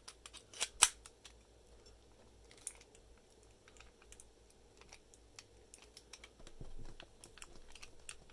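Small metallic clicks and clatter of brass padlocks and a brass key being handled, with two sharp clicks just under a second in and lighter ticks after.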